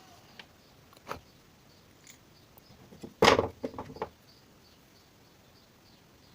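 Scooter carburetor and tools being handled during reassembly: a light click about a second in, then a louder knock followed by a few quicker knocks about three seconds in.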